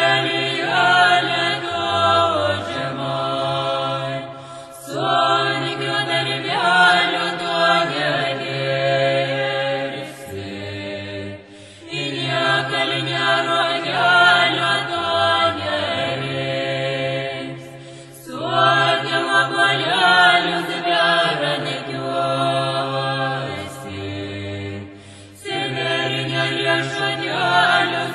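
Music: chant-like layered vocals over sustained low bass notes, moving in long phrases that restart about every six to seven seconds.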